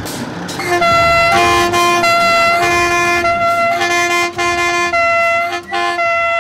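Vintage diesel railcar's horn sounding a series of loud blasts, from about a second in. The blasts vary from short toots to ones over a second long, and the pitch shifts between notes.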